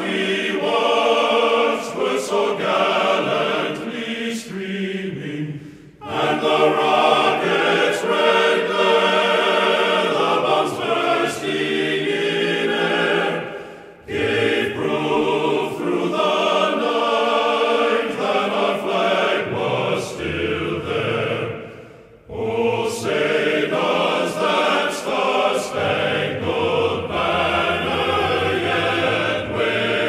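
Choral music: a choir singing long, sustained phrases in harmony, with a short break between phrases about every eight seconds.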